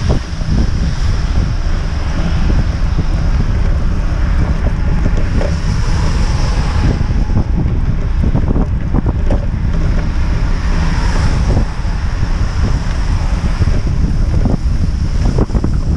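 Wind buffeting the microphone of a camera on a moving cargo bike, a steady heavy rumble, with scattered small knocks as it rolls along a wet, slushy road.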